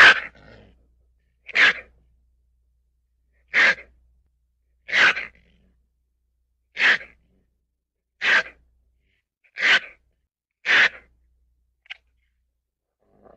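A ferret sneezing: eight short, sharp sneezes about one to two seconds apart, with a couple of faint clicks near the end.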